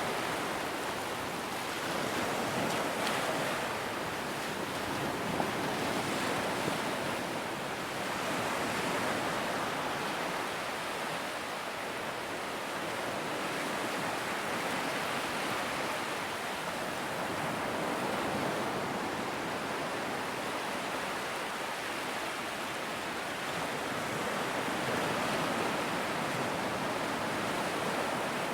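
Large ocean waves breaking on a beach: a continuous wash of surf that swells and eases every few seconds.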